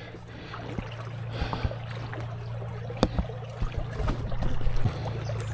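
Creek water sloshing and splashing around the legs of someone wading downstream, with small irregular knocks and one sharper knock about three seconds in.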